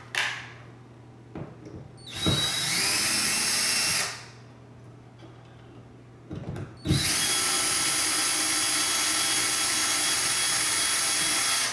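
Cordless drill-driver with a Phillips bit backing out a long screw from a ceiling light's mounting plate. A run of about two seconds whose whine rises as the motor spins up, then a couple of light knocks as the bit is reseated, then a longer steady run of nearly five seconds.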